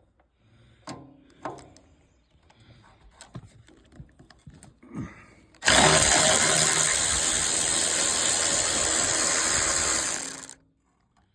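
A few light clicks and knocks, then about six seconds in a Milwaukee cordless electric ratchet runs steadily for about five seconds and stops abruptly, spinning out a fastener on the light housing.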